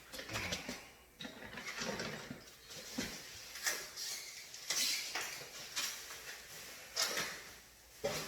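Irregular clicks, clatters and rustles of items being handled and moved about.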